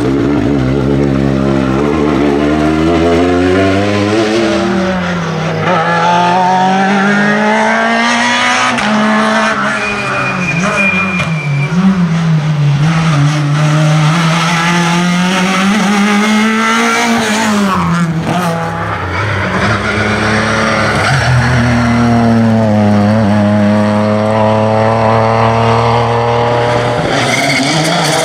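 Rally cars at full throttle on a special stage, one after another, starting with a Citroën DS3 R5. Their engines rev hard, the pitch climbing through each gear and dropping sharply at each lift or gear change.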